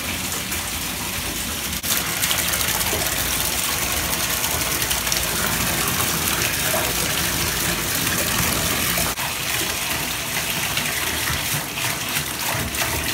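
Water gushing steadily from a bathtub spout into the tub as it fills.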